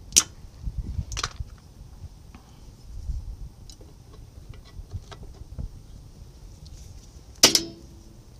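Metal clicks and clinks of a spring tool and brake return springs being worked onto a truck's rear drum brake shoes. There are two sharp clicks near the start, a few light ticks, and a louder clank that rings briefly near the end.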